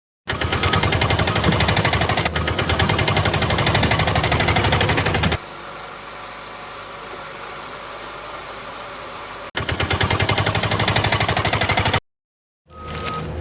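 A heavy engine running with a fast, rattling pulse, starting abruptly after a brief silence. About five seconds in it drops to a quieter, steadier running sound, then comes back loud for the last few seconds before cutting off suddenly.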